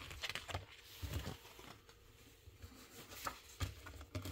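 Faint handling sounds of a magazine being leafed through: a few soft rustles and light taps, scattered and brief.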